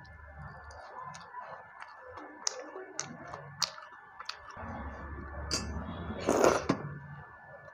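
Mouth clicks and smacks of someone chewing watery panta bhat eaten by hand, with one louder noisy burst lasting about half a second, a little over six seconds in.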